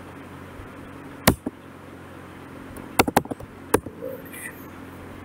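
Computer keys being pressed: one sharp click about a second in and three more close together around three seconds in, over a steady low electrical hum.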